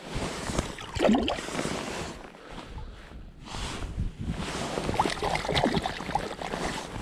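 Shallow lake water splashing and sloshing as a brown trout is released by hand and the hands are swished in the water, with wind gusting on the microphone.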